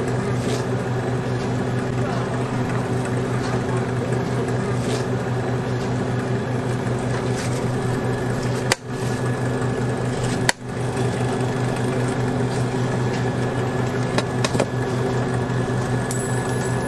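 A steady low mechanical hum, like a running motor, with a few sharp clicks over it. It cuts out briefly twice near the middle.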